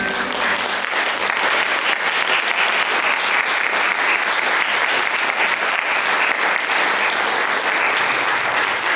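Audience applauding after a song, a steady dense clapping.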